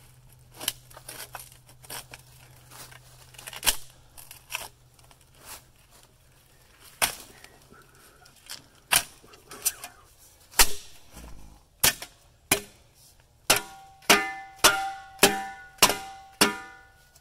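Sharp striking blows: scattered at first, then a quick run of about two a second near the end, each one ringing like struck metal.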